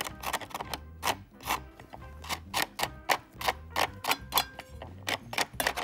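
Rapid scraping strokes on the rim of a paper woofer cone, about three or four a second, as the dried old foam surround residue crumbles off the edge.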